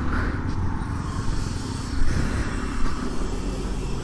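Suzuki Gixxer 155 motorcycle's single-cylinder engine idling, a low steady rumble, with a couple of short louder bumps about two seconds in.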